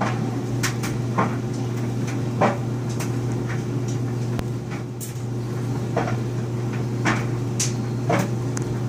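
A steady low hum with light clicks and knocks at irregular intervals, about one or two a second.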